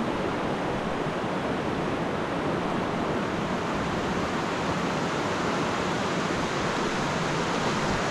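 Rushing water of river rapids, a steady even noise with no break.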